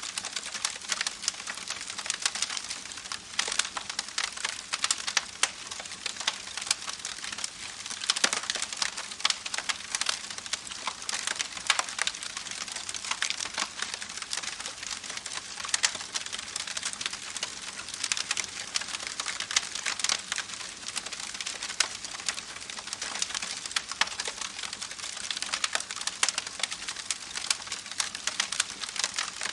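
Campfire crackling: a dense run of small snaps and pops over a soft hiss, with louder pops now and then.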